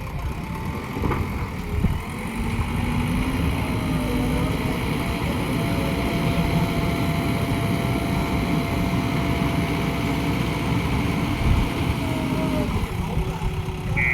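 JCB 3DX backhoe loader's 76 hp diesel engine running hard as it loads soil. The engine note climbs over the first few seconds, holds steady and high, then drops back near the end.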